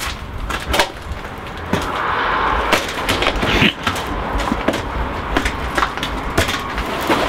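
Irregular knocks and clatters as a chainsaw is handled over a table, with a short rushing noise about two seconds in.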